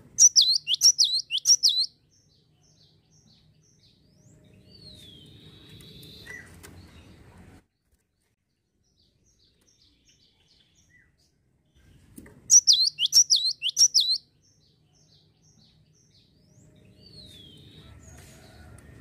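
Cinereous tit (gelatik wingko) singing: two loud bursts of rapid, repeated, sharp falling notes, each lasting about a second and a half, one at the start and one about twelve seconds later.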